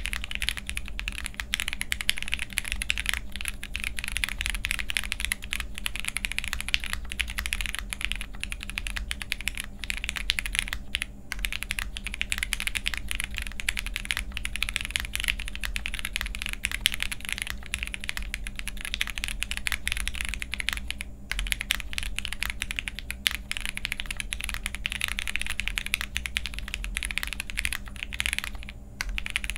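Continuous fast typing on a jris65 65% custom mechanical keyboard fitted with Cherry MX Black linear switches, a polycarbonate plate, Poron plate and case foam, and GMK Retro Muted keycaps. It is a dense, even run of keystrokes with short breaks about eleven seconds in and near the end.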